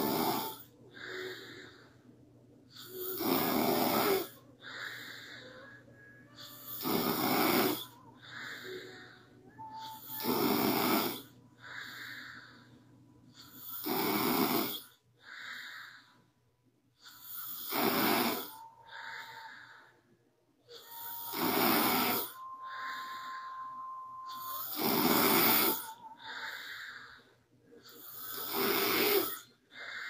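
A young woman snoring in her sleep, with a loud snore about every three and a half seconds and a softer breath between each. A faint thin whistle comes into a few of the breaths.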